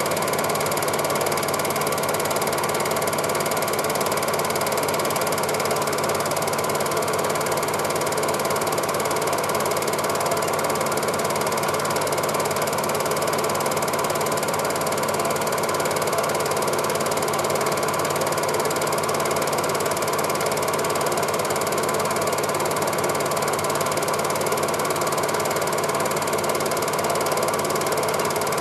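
Cine film projector running with a steady, unchanging mechanical noise.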